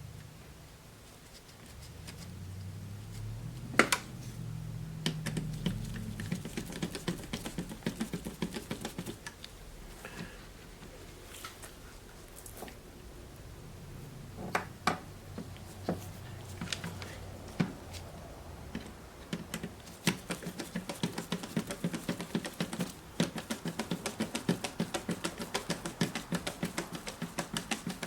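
Small plastic clicks and taps of hand work on a recorder's casing and parts during reassembly, turning into a quick run of rapid ticking over the last several seconds.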